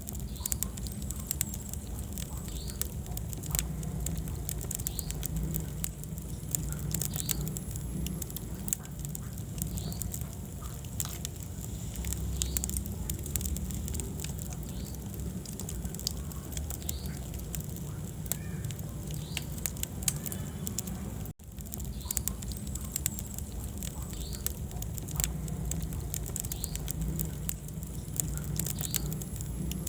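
Wood fire burning in a fireplace: constant irregular crackles and small pops over a steady low rumble of flame. A split-second dropout about two-thirds of the way through.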